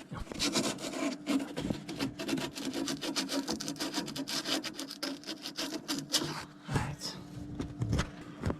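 Sandpaper scrubbing rapidly back and forth on the end of a copper water pipe, cleaning it before a push-fit fitting goes on. The scraping stops about six seconds in, followed by a few low knocks.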